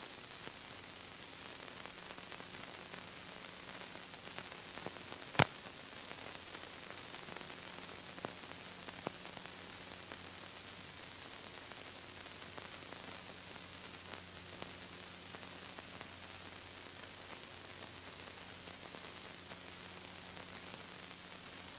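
Steady hiss and faint low hum of an old videotape transfer with no recorded sound, with one sharp click about five seconds in and two smaller clicks a few seconds later.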